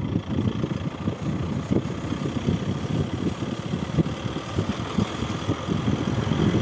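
A vehicle driving slowly through deep snow, its engine running under a rough, uneven low rumble.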